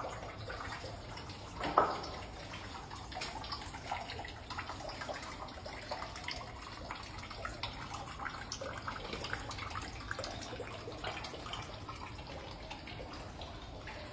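Water trickling and dripping in a narrow concrete tunnel, with many small scattered ticks and one louder thump about two seconds in.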